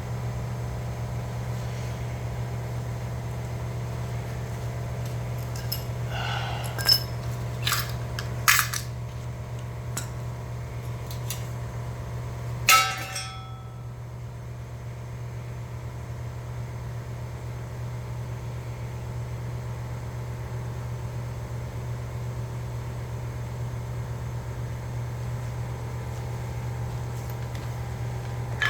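A few sharp metallic clinks and knocks, as from tools and metal parts, between about six and thirteen seconds in, over a steady low hum.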